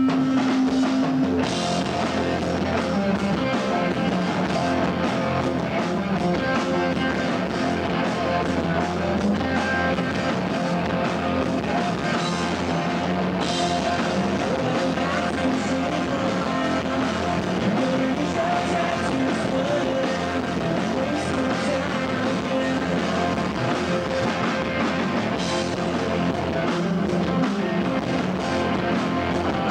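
Live rock band playing loud: distorted electric guitars, bass and drum kit. A held note rings out for about the first second and a half before the full band comes in.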